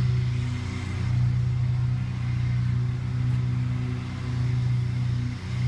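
Steady low motor hum that swells and eases every second or two, with a faint high steady tone above it.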